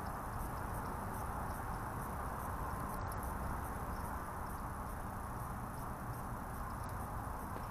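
Steady insect chorus, an even unbroken hum with a low rumble underneath.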